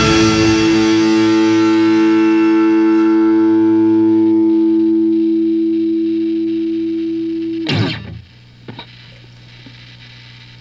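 Background music: a single electric guitar chord played through effects, held and slowly fading, then cut off suddenly about eight seconds in.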